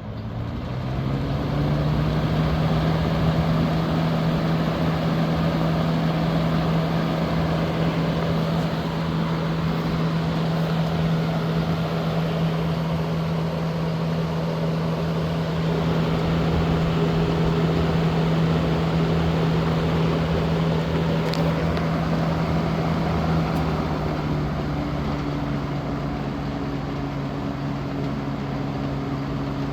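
A 1970s Galaxy Turbo Stream 20-inch box fan with a three-speed motor starting up and running, its motor hum and the rush of air from the blades rising to speed over the first two seconds. About six seconds before the end the hum drops to a lower pitch as the fan slows.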